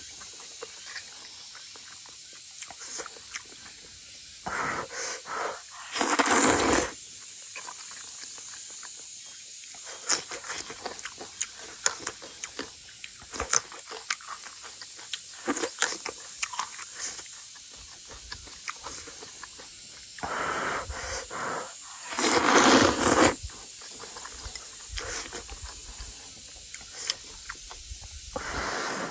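A person eating rice noodles in broth. There are several loud slurps of about a second each, two close together about a quarter of the way in and two more about three quarters through, with chewing and small clicks in between.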